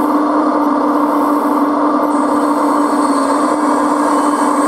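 Hydraulic drive of a radio-controlled Liebherr 956 model excavator running with a steady whine and hum as the boom and demolition grapple are lowered.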